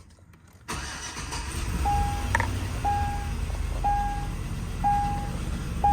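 A 2006 Chevy Avalanche's V8 engine idling with a steady low rumble, still misfiring on cylinder 7. The rumble starts under a second in, and an electronic beep sounds about once a second over it.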